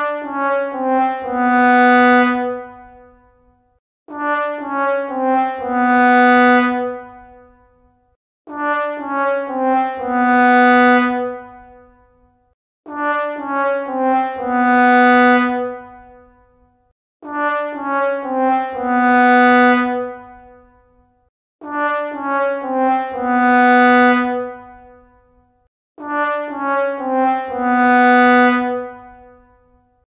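Sad trombone sound effect: a few short falling notes, then a long low note that swells and fades, the classic "wah wah wah waaah". It is played seven times over, a new phrase about every four seconds.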